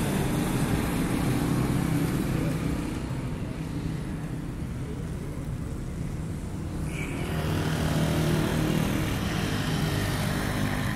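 Road traffic: small motorcycles passing on the road, with a steady low engine drone throughout that swells again about eight seconds in.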